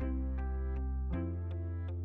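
Background music: sustained chords over a deep bass, changing about a second in, with a light tick keeping a steady beat.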